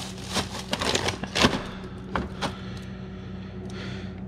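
Plastic bags of frozen food crinkling and rustling as they are shifted about in a pull-out freezer drawer, with a few sharp clicks and knocks, busiest in the first couple of seconds. A steady low hum runs beneath.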